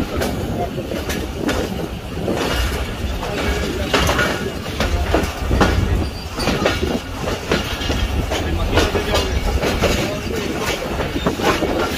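Passenger train running over the yard tracks, heard from aboard: a steady low rumble with the wheels clattering irregularly over rail joints.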